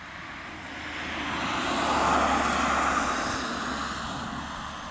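A vehicle passing by, its rushing engine and road noise swelling to a peak about two seconds in and then fading, over a steady low hum.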